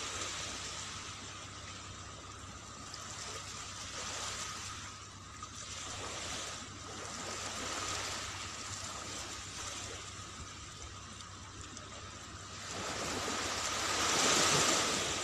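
Small waves washing up on a sand beach, the hiss of the surf swelling and falling back every few seconds, loudest near the end.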